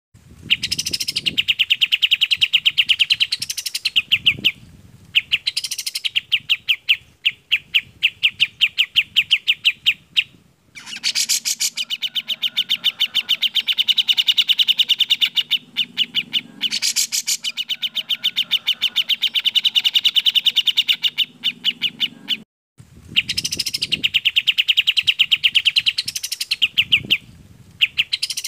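Clear bulbul song from a birdsong training recording of kapas tembak and cucak jenggot: long, rapid strings of bright repeated notes in phrases a few seconds long, separated by short pauses.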